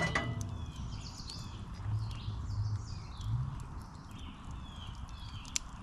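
Swamp-side wildlife: several low croaking calls, about two seconds in and twice more soon after, over steady high chirping from birds. Sharp clicks of a crackling campfire are scattered throughout.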